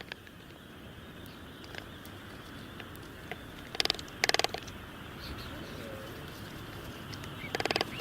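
Birds calling over a steady forest background hiss: three short, rapid rattling calls, two close together near the middle and one near the end, with a few faint chirps.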